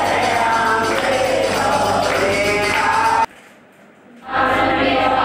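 Hindu devotional song, with singing over instrumental accompaniment. The sound drops away for about a second a little past halfway, then resumes.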